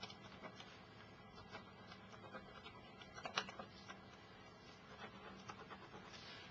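Digital pen with an ink tip writing on paper: faint, irregular scratching and ticking pen strokes, with one sharper click about halfway through.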